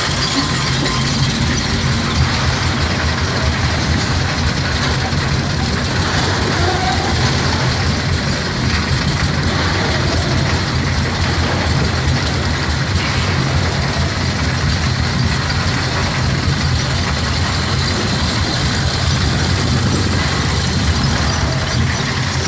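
Wild mouse roller coaster car being hauled up the lift hill by its chain: the lift chain clatters steadily beneath the car over a constant low hum from the lift drive.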